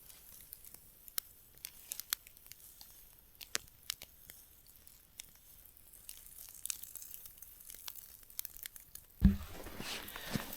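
Wood fire crackling with scattered sharp pops. About nine seconds in there is a thump, and then a steady sizzle of dough frying in oil in a frying pan.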